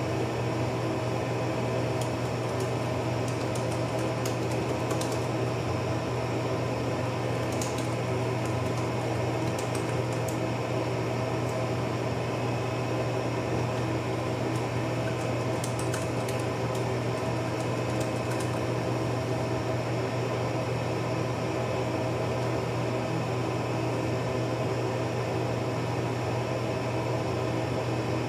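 A steady mechanical hum throughout, with faint, scattered taps of typing on a MacBook Air M1 keyboard over roughly the first two-thirds.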